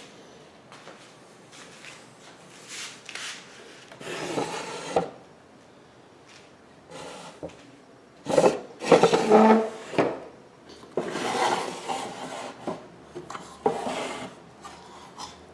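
Solid-wood drawers of a 1926 Singer sewing machine cabinet sliding in and out, wood rubbing on wood in several scraping strokes, the loudest a little past the middle.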